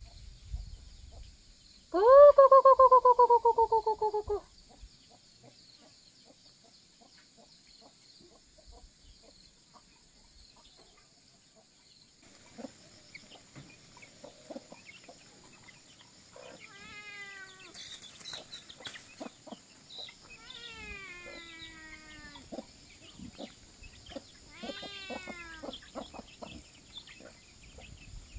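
Farmyard chickens calling. About two seconds in comes one loud, drawn-out wavering call lasting a couple of seconds; later come softer runs of short falling calls, over a steady high insect buzz.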